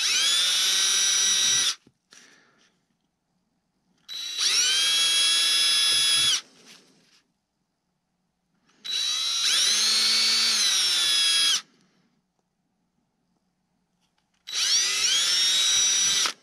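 Cordless drill boring small pilot holes through a wooden motor mount plate, in four separate runs of about two seconds each. Each run is a whine that climbs quickly to speed and then cuts off.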